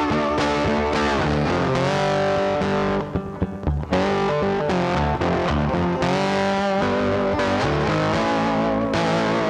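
Background rock music led by distorted electric guitar with bass, briefly dropping back a little after three seconds in.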